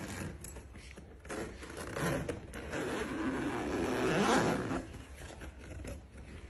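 Zipper on a felt donut cat tunnel being pulled, a rasping run of about three and a half seconds that gets louder toward its end.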